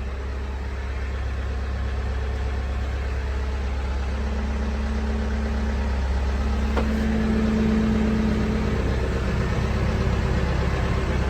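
95-horsepower turbo diesel engine of a Case 580 Super M Series 2 backhoe loader idling steadily, with a single faint click about seven seconds in.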